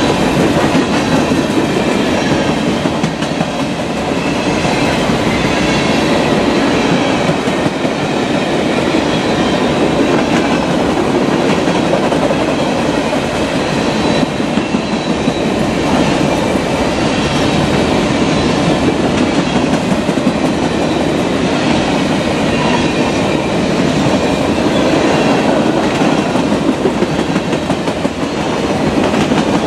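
The empty grain cars of a long freight train rolling steadily past, wheels clicking repeatedly over the rail joints.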